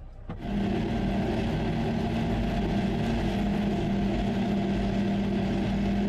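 All-terrain vehicle engine running at a steady speed, heard from inside the cab as an even drone with one constant hum. It starts abruptly about a third of a second in.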